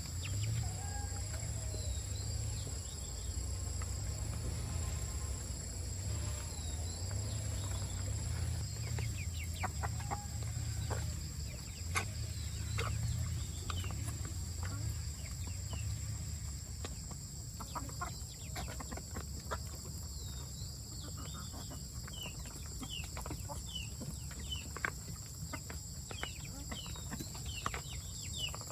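Chickens clucking over a steady low hum, with many short clicks and small chirps, more of them in the second half.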